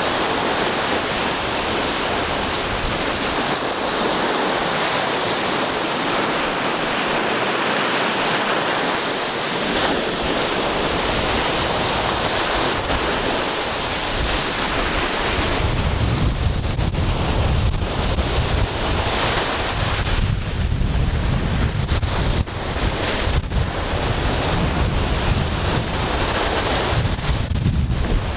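Ocean surf washing steadily onto the shore. About halfway through, wind starts buffeting the microphone, adding a low, fluttering rumble under the wash.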